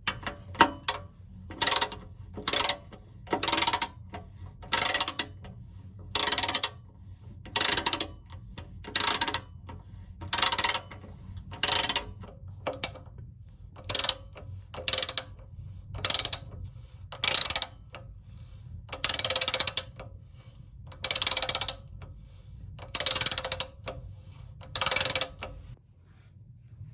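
Ratchet wrench clicking in repeated short strokes, about one a second, with a few longer strokes later on, while undoing fasteners on a motorcycle being dismantled. A low steady hum sits underneath.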